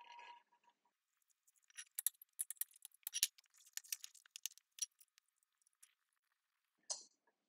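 Magic Eraser sponge scrubbing the inside of a stainless steel pot: a quick run of scratchy rubbing strokes, densest between about two and five seconds in, then one short scrape near the end.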